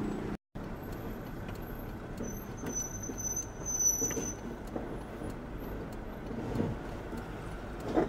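A truck on the move heard from inside its cab: steady engine rumble and road noise. A thin high squeal sounds for about two seconds around the middle, and the sound cuts out completely for a moment about half a second in.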